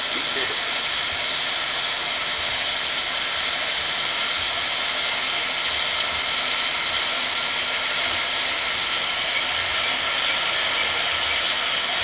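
Steady mechanical whirring with a ratcheting edge from a zipline sky-bike rig as the bicycle runs back along the steel cable.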